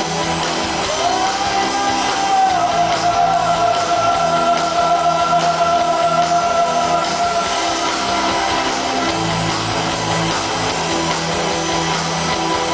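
Live rock band playing with electric guitars. About a second in, one long note slides up and is held for some six seconds over the band.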